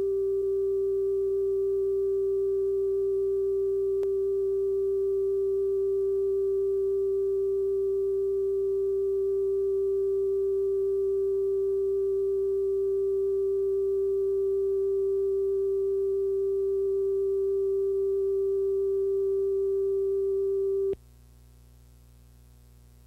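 Steady line-up test tone, a single mid-pitched sine tone played over colour bars as the reference level for the tape's audio. It cuts off suddenly about 21 seconds in, leaving a faint low hum.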